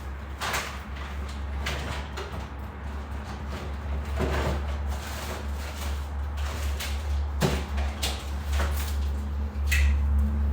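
Things being rummaged through and handled: scattered knocks, clatters and rustles over a steady low hum that grows louder near the end.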